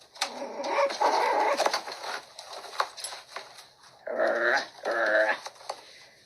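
Five-week-old puppies play-fighting, growling and whining: a rough, growly stretch in the first couple of seconds, then two short whining growls about four and five seconds in.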